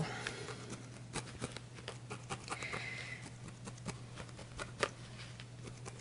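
Felting needle stabbing repeatedly through a wool ball into a foam pad: faint, irregular soft pokes and scratches, several a second, over a low steady hum.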